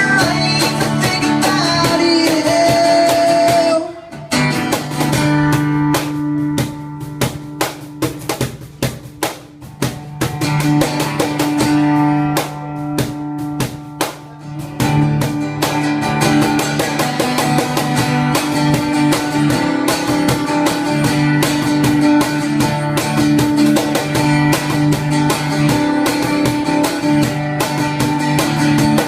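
Live acoustic music: a guitar with cajon beats. The music thins to sparse cajon hits about four seconds in and builds back to full playing a little past halfway.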